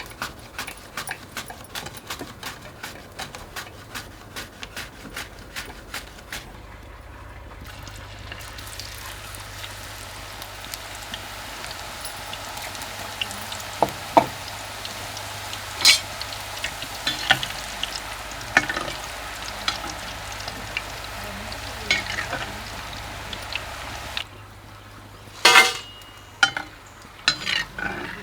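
Raw banana pieces frying in hot oil: a steady sizzle with scattered crackles and pops. It follows a run of quick, even taps in the first six seconds, and a few louder knocks come near the end.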